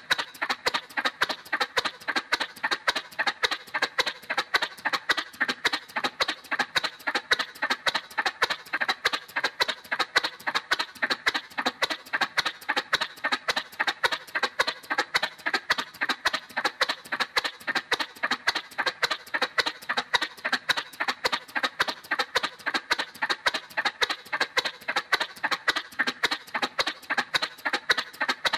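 Cartoon motorcycle sound effect: an even putt-putt of sharp pulses, about four a second, that keeps the same pace and level.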